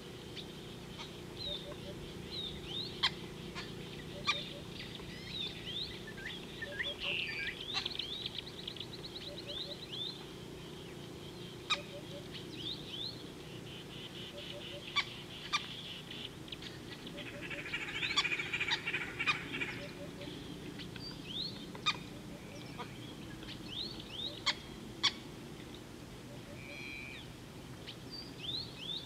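Birds calling in African bush: many short high chirps and sharp clicks, a rapid trill about eight seconds in and a harsher chattering stretch around eighteen seconds. A soft low note repeats about every one and a half seconds over a steady low hum.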